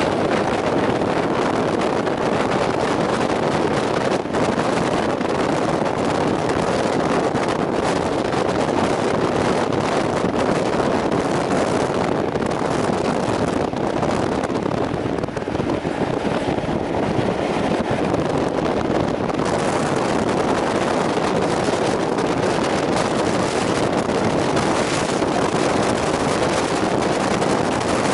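Steady running noise of a steam-hauled passenger train at speed, heard from a coach window, with wind buffeting the microphone throughout.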